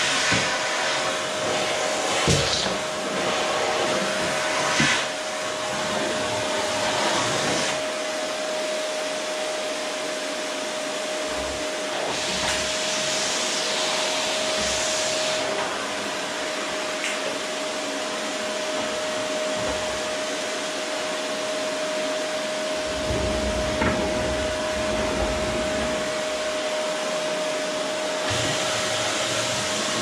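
Electrolux canister vacuum cleaner running steadily: a constant motor whine under the rush of suction air, the hiss brightening and dulling as the nozzle is worked across the floor. A couple of knocks a few seconds in.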